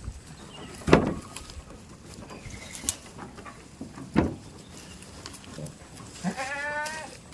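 Two sharp thumps, about a second in and about four seconds in, then a goat bleating once near the end: a short, wavering, quavering call.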